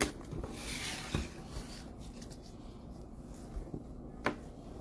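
Faint rustling of trading card packs and cardboard boxes being handled, with a sharp click about a second in and another near the end.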